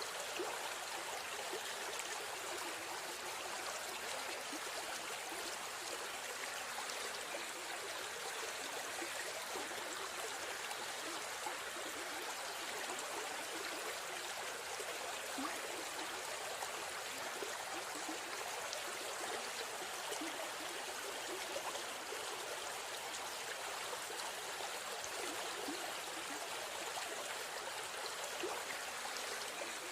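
River stream flowing and babbling steadily, an even rush of water with small trickling splashes.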